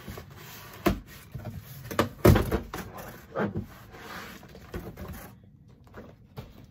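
Cardboard shipping box and its packaging being handled and opened: several knocks and thumps, the loudest about two seconds in, with rustling between.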